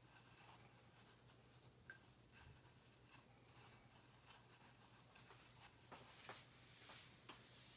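Near silence: faint rustling and scratchy clicks of dough being rolled in fine breadcrumbs on a ceramic plate, with a few louder ticks near the end as the plate is handled, over a low steady hum.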